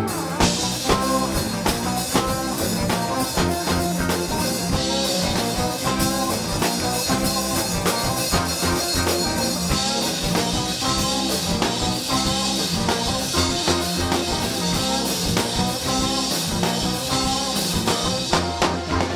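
Live rock band playing: electric guitars, keyboard and drum kit together, with a steady beat.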